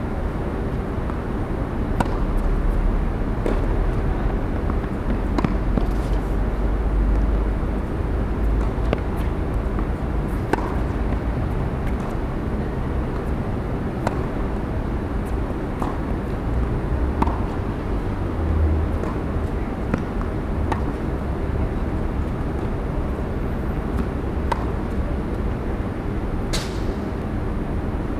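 Tennis balls struck by rackets and bouncing on a hard court during a rally: a series of sharp pops a second or a few seconds apart, one louder hit near the end, over a steady low background rumble.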